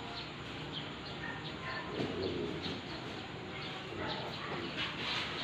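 Small birds chirping, with a dove or pigeon cooing about two seconds in.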